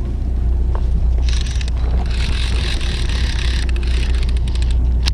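Fishing boat's engine running with a steady low hum. From about a second in until near the end, a hissing rush sits on top of it.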